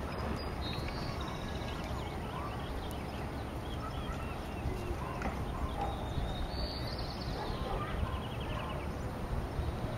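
A herd of horses moving about on grass, with soft hoof steps over a steady background noise and a few faint high chirps.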